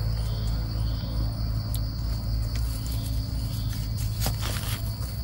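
Crickets chirring in a steady high trill over a low rumble, with a few sharp clicks about four seconds in.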